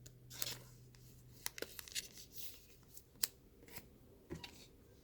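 Trading cards being handled and slid into card sleeves: faint, scattered rustles and light clicks.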